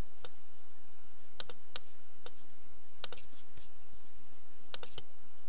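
Computer mouse clicking: about ten sharp single clicks at irregular intervals, a few in quick pairs, over a steady hiss.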